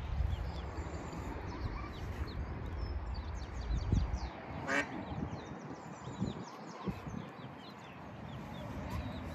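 A brood of mallard ducklings peeping, many short high chirps overlapping, with one louder call near the middle. Wind rumbles on the microphone through the first half.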